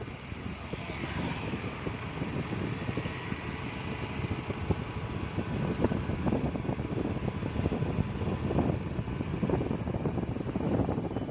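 Steady road rumble of a moving vehicle, heard from on board, with wind buffeting the microphone in frequent irregular crackles.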